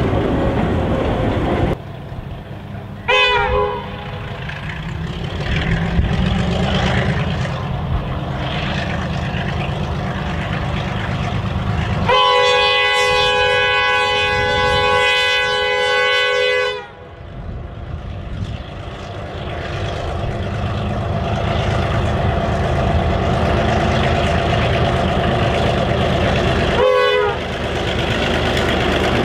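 Victorian Railways Y-class diesel-electric locomotive (Clyde-built EMD G6B with a two-stroke EMD 567C engine) running, with its engine and wagons rumbling as it draws near. Its chime horn gives a short toot about three seconds in, a long blast of about four seconds in the middle, and another short toot near the end.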